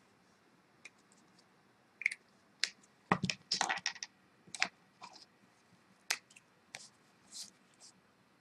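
A scatter of light, irregular clicks and taps, with a quick run of them about three seconds in.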